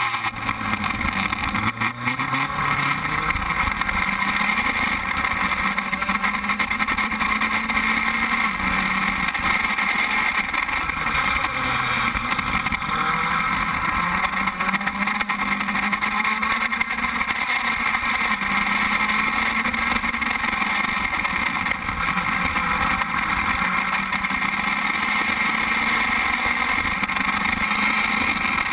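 Onboard sound of an FS2.0 open-wheel race car's engine running loud and steady. Its pitch climbs slowly over several seconds and then drops back, several times.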